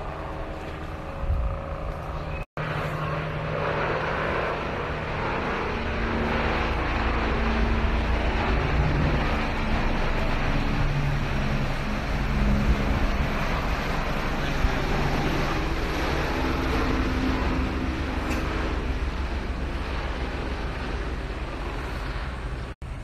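Steady low mechanical rumble with a faint hum that shifts in pitch now and then; it cuts out briefly twice.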